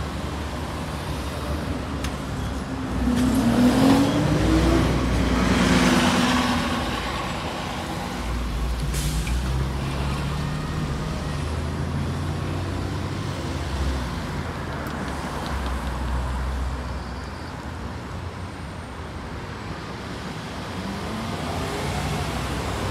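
Orion V transit bus passing close by, its engine rising in pitch as it pulls away, loudest a few seconds in, then fading into steady road traffic. Another vehicle accelerates near the end.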